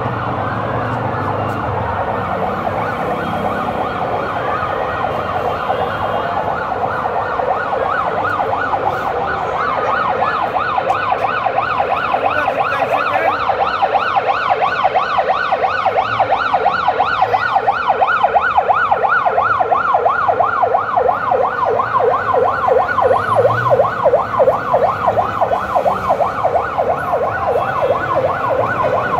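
Several emergency-vehicle sirens sounding together in a fast yelp, each rising and falling in pitch several times a second. The sirens grow louder about ten seconds in.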